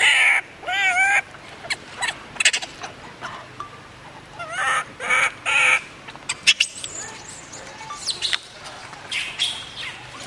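Baby long-tailed macaque crying for its mother: short, high, wavering cries in quick runs, one run at the start and another about four to six seconds in, with fainter sharp squeaks later on.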